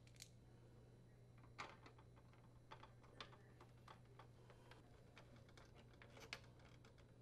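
Faint, irregular clicks and ticks of a Phillips screwdriver turning small screws into a plastic dryer door retainer, with a couple of sharper clicks about a second and a half in and near the end. A steady low hum underneath.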